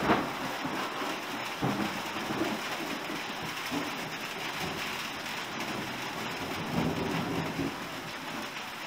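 Steady rain falling, with low rumbles of thunder that swell and fade, the loudest near the start and again about seven seconds in.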